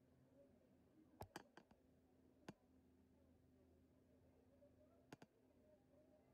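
Near silence over a faint steady hum, broken by a few sharp clicks: a quick run of about four a second in, one more a second later, and a close pair about five seconds in.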